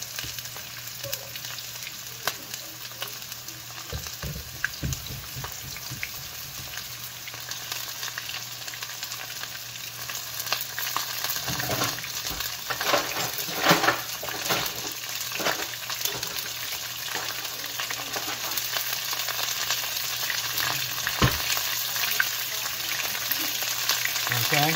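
Chicken pieces frying in hot oil in a frying pan: a steady crackling sizzle that grows gradually louder, with bursts of louder sizzle about halfway through.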